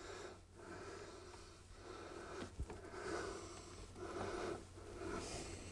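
A man breathing audibly through his nose while crouched over cables, a soft breath about every second, with a small click about halfway through.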